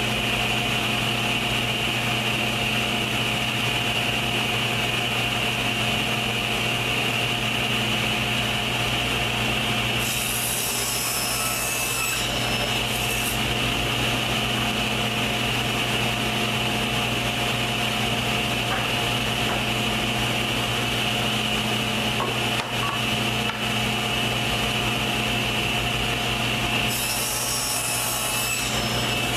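Sliding table saw running steadily at speed, crosscutting drawer pieces to length: the blade goes through the wood about ten seconds in and again near the end.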